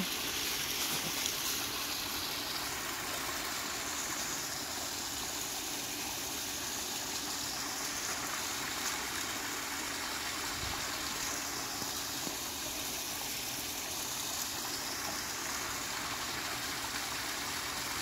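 Small rock waterfall spilling into a swimming pool: a steady trickle and splash of falling water.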